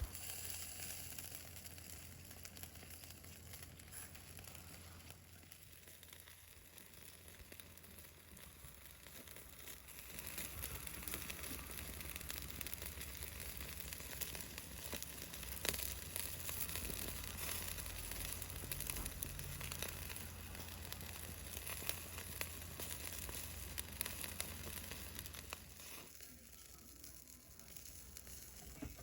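Chicken wings sizzling on a grill over a campfire, a soft steady hiss with fine crackles, swelling a little about ten seconds in and easing off near the end.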